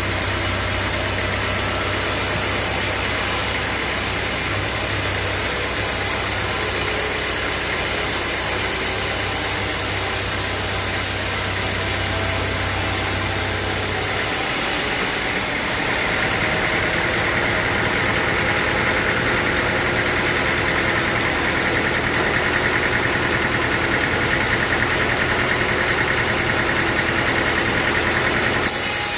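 Sawmill engine running steadily. About halfway through, the sound changes abruptly: the low hum drops away and a steady higher-pitched whine and hiss comes in and holds.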